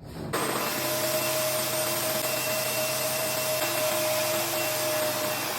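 Revair reverse-air hair dryer, a suction dryer that pulls air through the hair, switching on about a third of a second in and then running steadily: an even rush of air with a steady motor hum.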